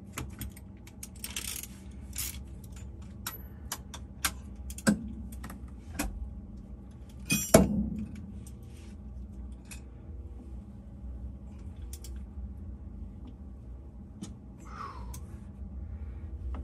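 Scattered metal clicks and clinks of a torque wrench and socket being handled on the vibration dampener bolt, with one loud ringing metal clank about seven and a half seconds in, over a low steady hum.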